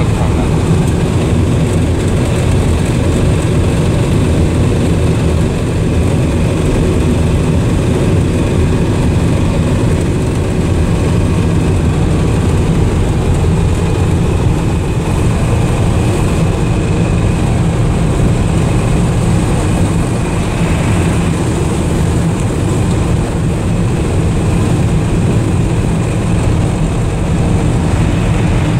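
1979 Dodge D300 pickup heard from inside the cab while driving: its 360 V8 with a four-barrel carburettor runs steadily under tyre and road noise from the gravel road. The loud drone holds level throughout.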